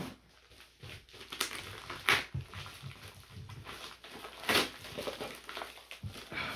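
A parcel being opened by hand: irregular rustling and crinkling of packaging, with a few sharper tearing or scraping sounds about one and a half, two and four and a half seconds in.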